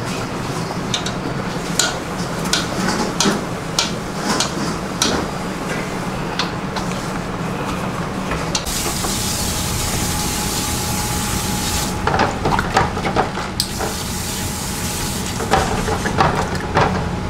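Restaurant kitchen work: metal utensils and pans clatter and knock over a steady low hum. There are two stretches of hiss a few seconds long in the middle, the first about three seconds and the second shorter.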